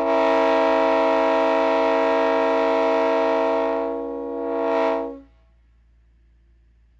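Multi-chime train air horn blowing a steady chord of several notes, swelling briefly just before it cuts off about five seconds in.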